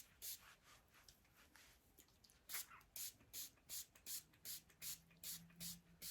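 Hand-pumped spray bottle misting water onto curly hair: one squirt near the start, then a quick run of about ten short squirts, two to three a second, from about halfway through.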